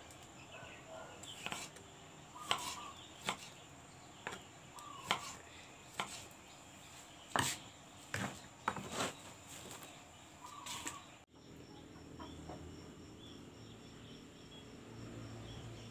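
Irregular sharp knocks and clicks, about a dozen over ten seconds. About eleven seconds in they stop abruptly and give way to a faint, steady, high pulsing trill over a low hum.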